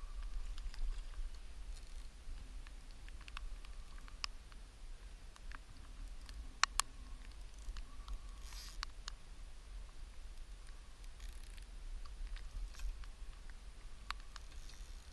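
Handling noise from an angler playing a fish on a bent carp rod: a low rumble with scattered faint clicks and taps, and one sharper click about seven seconds in.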